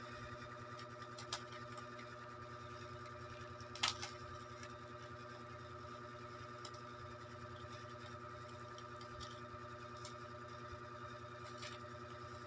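A steady hum at several fixed pitches, with a few light clicks and one sharper click about four seconds in, from hands handling a cat's IV catheter and tubing.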